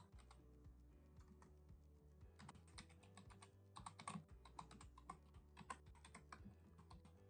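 Computer keyboard typing, faint: quick runs of keystroke clicks in uneven bursts, over a low steady hum.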